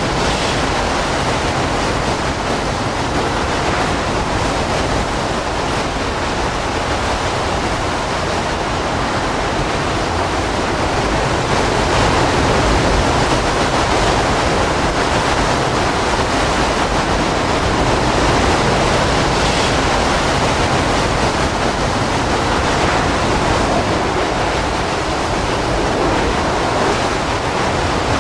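Category 4 hurricane wind and wind-driven rain: a loud, steady rush of noise with no letup, a little stronger from about halfway through.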